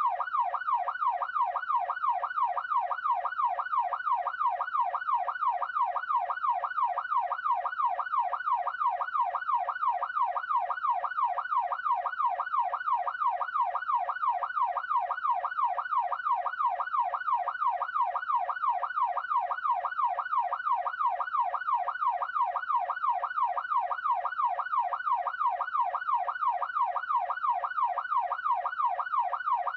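Electronic police siren in yelp mode: one tone rapidly sweeping up and down, about two and a half times a second, repeating evenly throughout.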